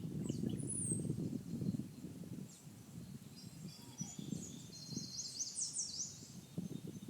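Songbirds singing and calling in high, short notes, with a quick run of chirping notes about four to six seconds in. An irregular low rumble runs underneath and is louder than the birds.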